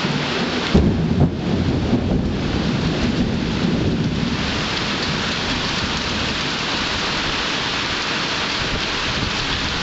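Thunder rolling over steady rain, loudest about a second in; the thunder dies away about four seconds in, leaving the rain falling.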